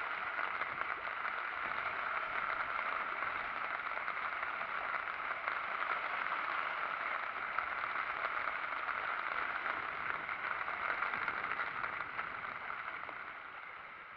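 Choppy, storm-driven sea lapping and splashing against shoreline rocks: a steady wash of water noise that fades out near the end.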